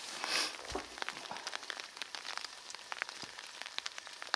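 Light rain pattering: many irregular drops ticking close by. A brief rustle at the start and a soft low thud under a second in.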